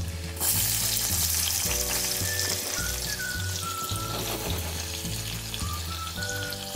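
Diced red onion and spring onions sizzling in hot vegetable and coconut oil in a pot. The sizzle jumps up suddenly about half a second in as the red onion goes into the oil, then keeps going.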